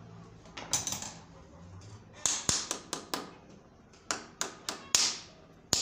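Hammer tapping a cover down into the aluminium case of a Toyota A245E automatic transmission: a run of sharp metallic taps, about three a second, with a short pause near the middle.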